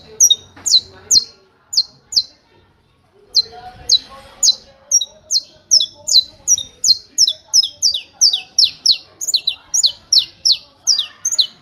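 Saffron finch (canário-da-terra) singing its 'martelo' song, a long run of sharp, clipped notes, each sliding down in pitch, repeated about three times a second. There is a break of about a second near the start, and the notes quicken near the end.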